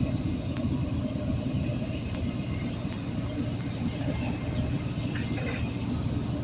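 Union Pacific freight train rolling past: a steady low rumble of wheels on the rails, with a thin, steady high whine over it.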